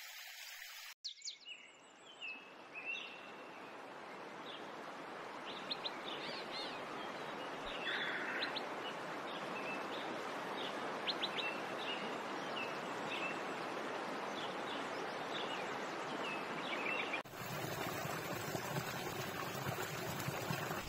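Birds chirping, many short high calls scattered over a steady background hiss. The background changes abruptly shortly after the start and again near the end.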